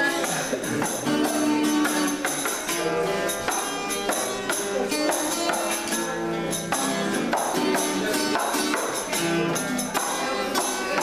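Upbeat song in an instrumental passage, with a steady beat and tambourine jingles over sustained melody lines.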